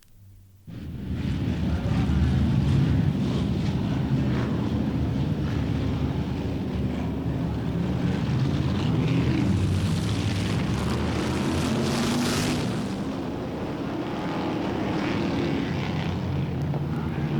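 Pack of racing stock cars running flat out on a short oval track, several engines at high revs overlapping. It starts suddenly about a second in, with a brighter rush of noise between about ten and twelve seconds as cars pass close.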